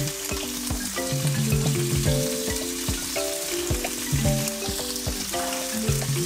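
Sliced red onion and red and green bell pepper strips sizzling in hot oil in a frying pan. Background music with melodic notes and a deep drum beat plays over it.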